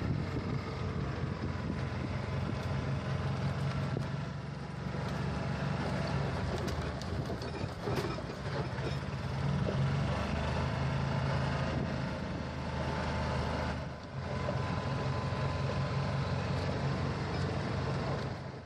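Gas-engined golf cart driving along, its small engine running steadily with a low hum.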